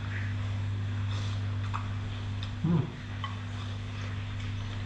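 A man eating noodle soup from a glass bowl: a few faint small clicks of a fork and eating, and one short murmured 'mm' about two and a half seconds in. A steady low hum runs underneath.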